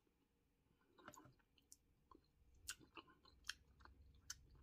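Near silence with a few faint, short clicks.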